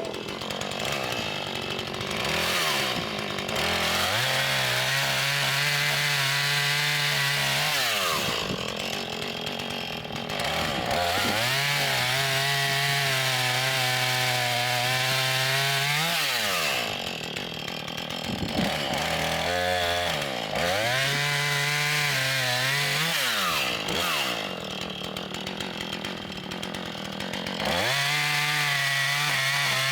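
A two-stroke chainsaw cutting firewood: the engine revs up, holds at full throttle through the cut for a few seconds, then drops back toward idle, about four times in a row.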